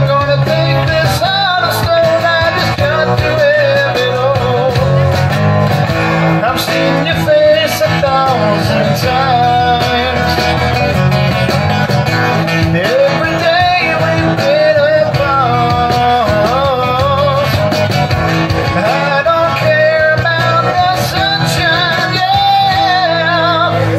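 Live acoustic band: several acoustic guitars playing a rock song together, with a bending melody line carried over the strumming.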